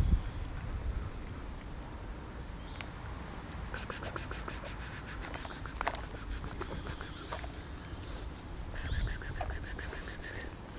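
An insect's rasping trill of quick, even ticks, lasting about three and a half seconds from a few seconds in and coming again more briefly near the end, over a short high chirp that repeats about once a second.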